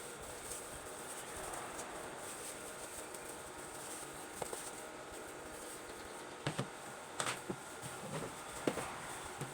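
Steady background hiss with a handful of short, sharp knocks and clinks in the second half, one about halfway through and several close together near the end.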